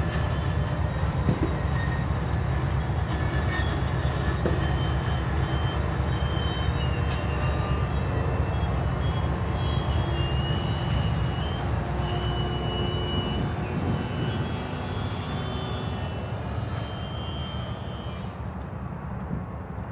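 Loaded coal cars of a freight train rolling slowly past: a steady low rumble of wheels on rail, with thin high wheel squeals coming and going. The rumble eases a little near the end.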